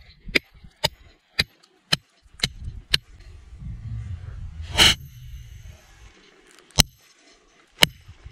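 Steel bolo knife blade chopping into a stone block: sharp clacks about twice a second, then a louder, ringing strike about halfway through and two more spaced about a second apart near the end. The blows are chipping the knife's edge.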